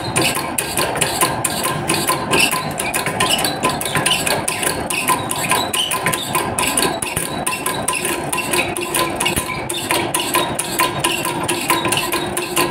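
Hydrostatic test pump clattering steadily, with rapid metallic clicks several times a second over a faint hum, as it pushes water into the air receiver tank and the pressure climbs.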